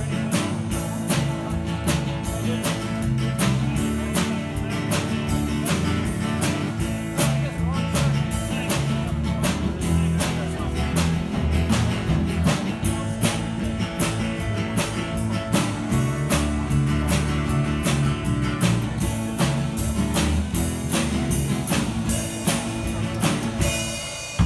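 Live country-rock band playing an instrumental break: guitar over bass and a steady drum beat, with no singing.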